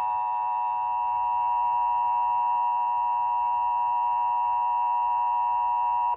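Emergency Alert System attention signal: the steady two-tone alert tone of 853 and 960 Hz played together, sounding the start of an alert message in a monthly test. It cuts off abruptly at the end.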